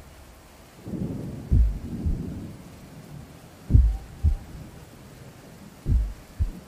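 Rushing of fast-flowing floodwater, with about five short, dull low thumps of wind buffeting the phone's microphone.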